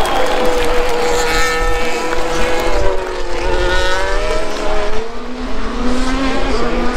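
Formula 1 cars' 1.6-litre turbocharged V6 hybrid engines running on the circuit, several engine notes overlapping and sliding down and up in pitch as the cars pass.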